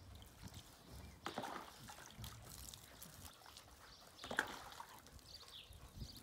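Water poured from a plastic jug over a wet Bernese Mountain Dog's coat, splashing and trickling as the dog is rinsed, with two louder splashes, one about a second in and one about four seconds in.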